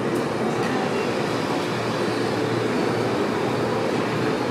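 R160 subway train running, giving a steady, loud mix of noise and low hum that holds even throughout.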